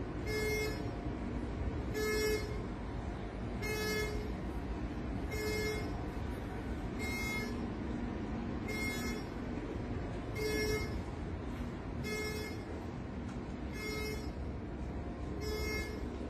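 A ship's bridge alarm beeping in a steady repeating pattern, one electronic beep about every 1.7 seconds, over a constant low machinery hum.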